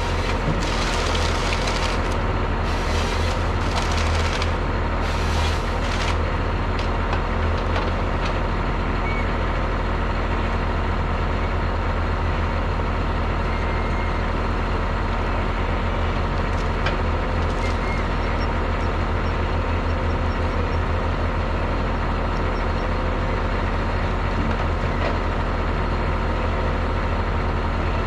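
Diesel engines of forestry machines running steadily, a winch machine close by and a harvester working below. During the first several seconds, three or four bursts of wood cracking and splintering come from the harvester head handling a stem.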